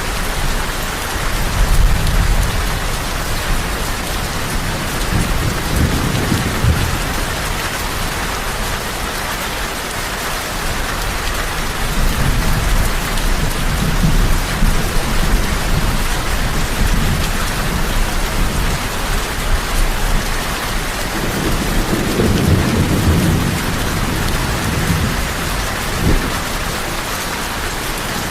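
Heavy rain falling steadily, with several low rolls of thunder swelling and fading underneath it.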